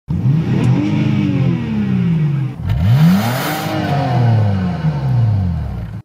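BMW 325i's inline-six engine revved twice: the pitch climbs and falls back over about two and a half seconds, then climbs again more quickly and falls away slowly, cutting off suddenly at the end.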